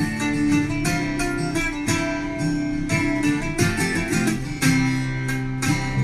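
Background music: an acoustic guitar playing a run of plucked and strummed notes at a steady pace.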